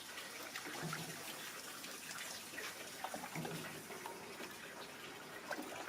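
Water running or being poured, a steady splashing rush with small crackles.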